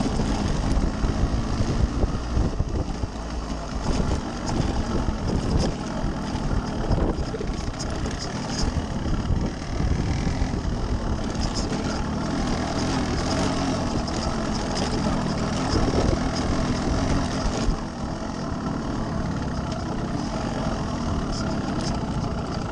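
Yamaha RX135's single-cylinder two-stroke engine running steadily as the motorcycle is ridden over a rough dirt trail, with occasional short clicks and knocks over the engine sound.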